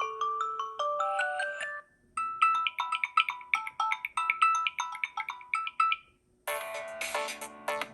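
Samsung Galaxy A04s stock ringtones played one after another. One melody ends about two seconds in. After a brief gap a quick melody of short, bright notes plays. After a second short pause, about six and a half seconds in, a fuller, denser ringtone begins.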